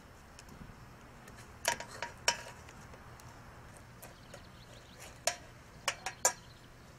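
Metal tongs and a knife clinking against a metal baking pan while a grilled pineapple slice is cut and lifted: a couple of sharp clinks about two seconds in, then three more near the end.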